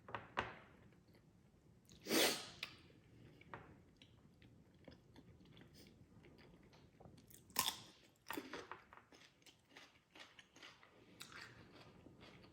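Close-mic chewing of a mouthful of spicy salmon salad with raw onion: many small wet clicks, with a few louder short bursts, the loudest about two seconds in.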